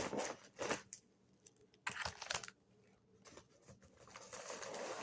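Packaging being handled: irregular crinkling and rustling, in short bursts near the start and around two seconds in, then a longer, softer rustle near the end.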